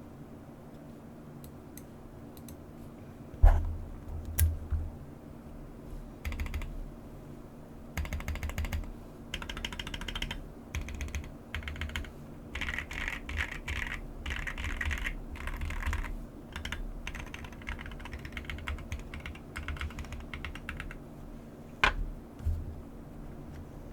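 Typing on a computer keyboard: about three quiet seconds, then a few single louder key presses, then fast runs of keystrokes, easing into sparser presses near the end.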